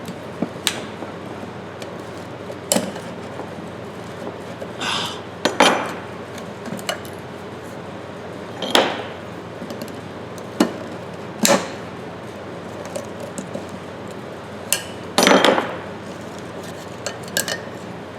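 Steel screwdriver clinking and scraping against the steel body of a Ridgid pipe wrench while prying at a stuck spring inside it: scattered sharp metal clicks with a few short scrapes.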